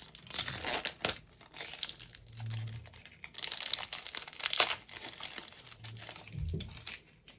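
Foil wrapper of a Match Attax trading-card pack crinkling and tearing as it is pulled open by hand, in irregular crackly bursts.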